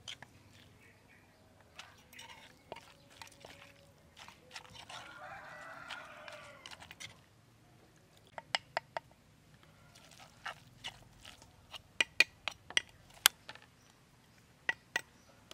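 Sharp clicks and knocks of a metal spoon against a mortar while salad is stirred in it, coming in quick clusters in the second half. A rooster crows once, about five seconds in.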